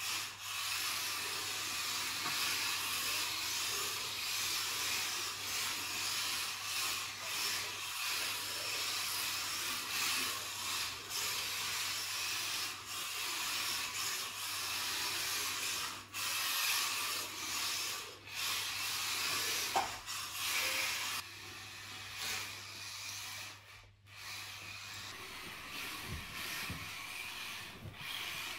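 Two WLToys micro RC drift cars (K989 and K969) driving and sliding on a mat track: a steady rushing whir from their small electric motors and gears, with the hard drift tyres scrubbing on the mat, rising and falling with throttle. It is quieter in the last several seconds.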